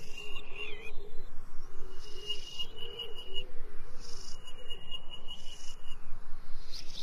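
Eerie sci-fi soundtrack sound design: a high, thin whistling tone held for a second or so and broken off twice, over warbling low tones and a steady hiss, with short gliding whistles near the start and end.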